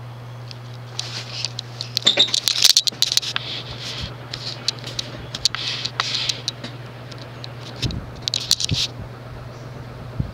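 Quorum Electra ceiling fan's spinner motor running on high with a steady low hum. Over it come irregular scratchy rustling and clicks, from about a second in until near the end, louder than the hum.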